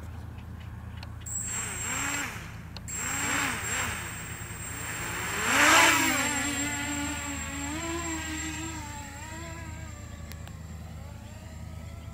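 Small racing quadcopter's electric motors whining, the pitch rising and falling in repeated throttle surges, loudest about six seconds in. The whine then wavers and fades as the drone flies off.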